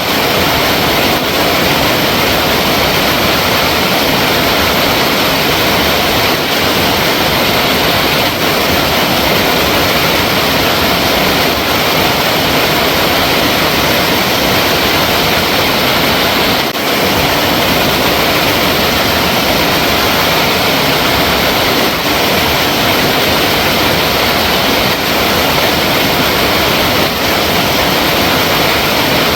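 Flowing water running with a steady, loud, even rush.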